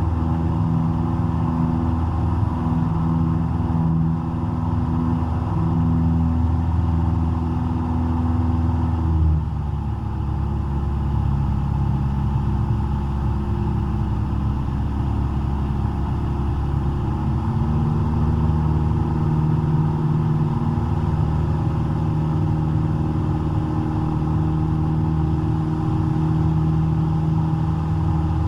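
Cessna 172's four-cylinder piston engine and propeller droning steadily, heard from inside the cabin. The engine note drops about a third of the way in and rises slightly again a little past the middle.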